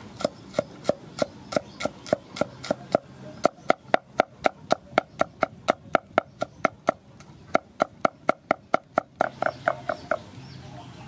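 A knife chopping garlic cloves on a thick round wooden chopping board: even knocks of the blade on the wood, about three a second, with two short pauses and a quicker run near the end.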